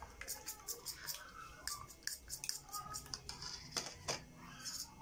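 A metal fork beating raw eggs and moringa leaves in a ceramic bowl, its tines clicking rapidly against the bowl, several strikes a second.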